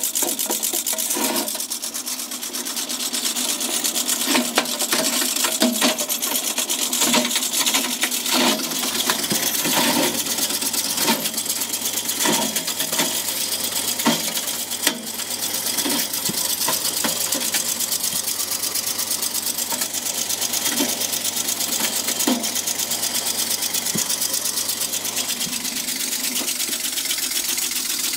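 Shredder's cutter teeth chewing through 3.5-inch floppy disks: a fast, steady mechanical rattle broken by many sharp cracks as the plastic shells break up.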